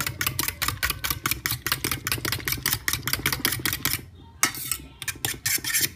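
Eggs and milk being beaten in a bowl, the utensil clicking rapidly against the bowl about seven times a second. The beating stops about four seconds in, followed by a few scattered clinks.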